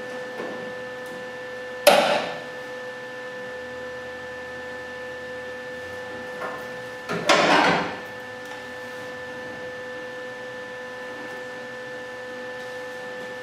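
Steady electrical hum with two loud knocks, one about two seconds in and a longer double one after about seven seconds, as the welding gun and clamps are handled against the car's sheet-metal body.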